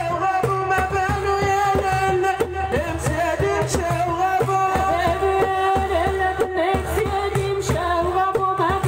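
Algerian wedding music: a singer's voice holding and ornamenting long notes over a steady drum beat.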